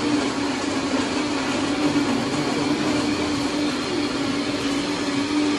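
Electric blender running steadily, blending a frozen mudslide cocktail: a constant low hum under loud noise.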